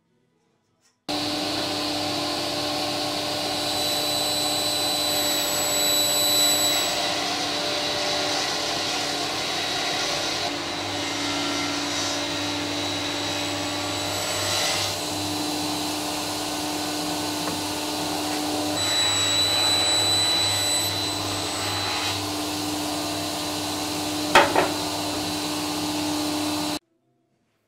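Table saw running steadily while an ash board is fed through the blade. The motor hum drops slightly in pitch twice, with more cutting noise, as the blade takes the wood. Two sharp knocks come near the end, and the sound starts suddenly about a second in and cuts off abruptly shortly before the end.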